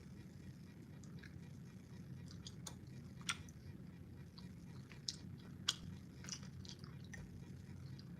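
Someone chewing a Bean Boozle jelly bean, faintly, with scattered wet mouth clicks and smacks, the sharpest about three seconds in and two more near the middle, over a low steady hum.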